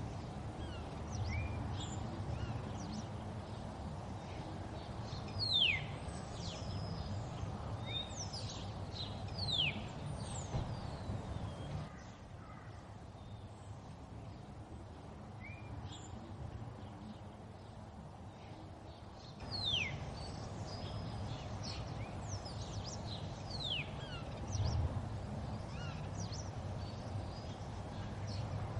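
Birdsong ambience: several birds giving short, sharp falling chirps and whistles over a steady low background rumble. It dips quieter for several seconds in the middle, and the same passage repeats about every fourteen seconds.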